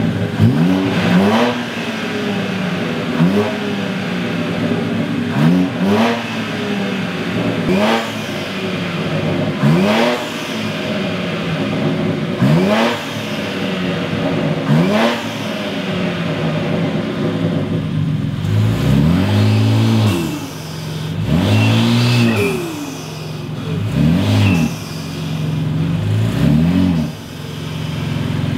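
BMW X3 M's twin-turbo inline-six revved again and again while standing still: each rev a quick rise and fall in pitch, about every two seconds. In the last third the revs are longer and deeper.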